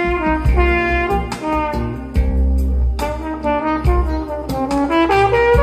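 Live jazz band music: a brass horn plays a melody of held and gliding notes over a heavy bass line, with sharp drum hits.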